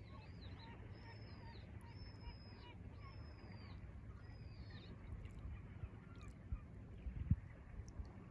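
A bird calling about once a second, each call a high drawn-out note that rises and falls away, stopping about halfway through. Under it is the low wash of calm sea water lapping (潮騒). A soft thump comes near the end.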